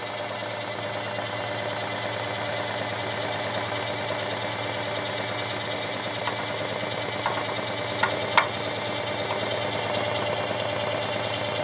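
Scheppach SD1600V scroll saw running with no workpiece, its blade reciprocating in a steady, rapid mechanical chatter. A few short sharp clicks come through about two-thirds of the way in.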